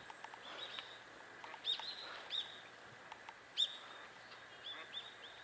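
Small birds chirping: a scattered series of short, high chirps, a few louder ones standing out about two and three and a half seconds in.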